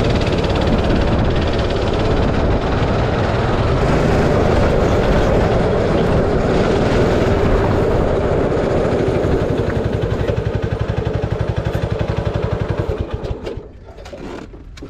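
16 BHP go-kart engine running hard under the driver's seat, then easing to a slower pulsing beat as the kart slows. Near the end the engine sound drops away sharply as the kart comes to rest.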